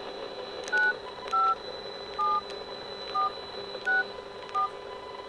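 Flip phone keypad sending six short DTMF touch-tones, one per key press, spread over about four seconds: digits of an access code being entered on a call.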